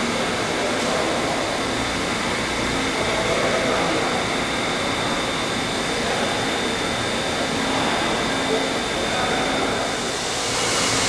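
CNC tube-bending machine running: a steady mechanical hum and hiss with faint high whines, the hiss growing brighter near the end.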